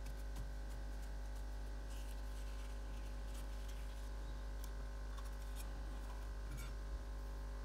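Faint, scattered clicks and light handling noise of fingers laying small moss clumps on a damp paper towel and setting down a clear plastic tray, over a steady low electrical hum.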